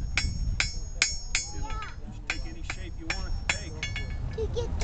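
Blacksmith's hammer striking metal on an anvil in a steady rhythm, about two to three ringing blows a second, with faint voices underneath.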